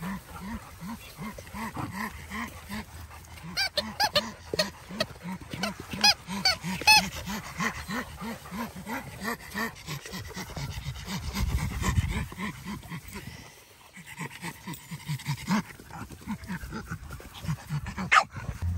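A dog panting quickly and steadily, about three breaths a second, with a few short high-pitched yips a few seconds in.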